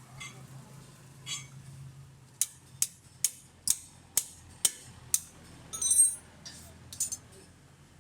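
Sharp metal taps, about two a second for around three seconds, then a louder ringing metal clink and one more near the end, typical of metal tools being struck or handled during suspension work.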